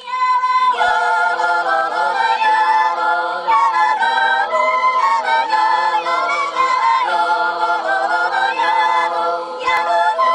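Choral music: voices singing without instruments, sustained chords that change every second or so.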